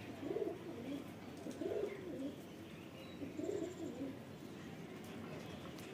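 Domestic pigeon cooing: three low, rolling coos about a second and a half to two seconds apart.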